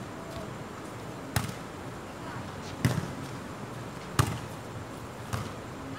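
Volleyball being hit back and forth in play: four sharp smacks of the ball, roughly one every second and a half.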